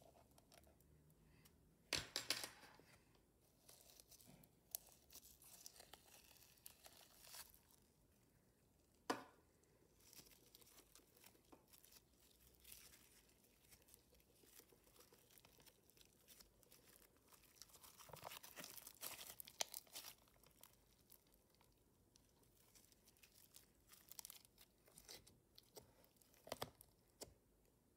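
Faint, sticky crackling and tearing of slime being folded, stretched and pressed by hand in a plastic tub, with irregular small pops and clicks. Louder moments come about two seconds in, around nine seconds, and in a longer run of crackles a little past the middle.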